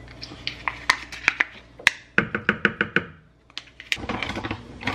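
A metal spoon tapping and scraping avocado out of a small plastic cup into a blender jar. It makes a string of sharp knocks, with a quick run of about six taps in the middle, then a brief pause and some softer handling knocks.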